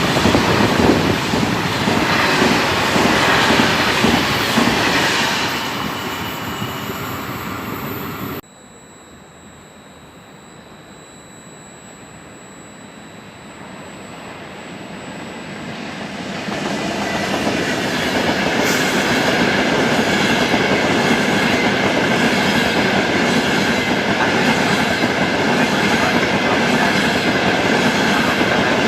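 A train running past, loud, cut off abruptly about eight seconds in; a second train then approaches, growing steadily louder, and runs past with a steady high tone over the rumble of wheels on rails.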